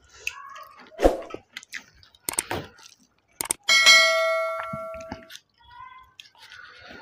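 A click, then a notification-bell ding that rings out and fades over about a second and a half: the sound effect of a subscribe-button animation. Before it, short soft knocks and squelches from a hand mixing curry rice on a steel plate.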